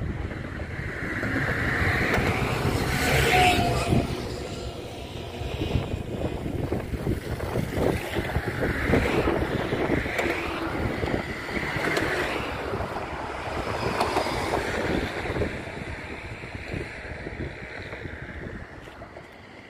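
Road and engine noise from a vehicle driving across a highway bridge, with wind rushing over the microphone. The noise swells and eases every couple of seconds and grows quieter near the end.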